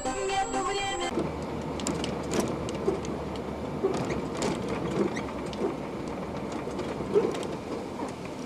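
Music for about the first second, then the running noise of a bus from its dashcam: engine rumble with the cabin rattling and clicking. A sudden loud bang comes right at the end as the bus strikes the car ahead.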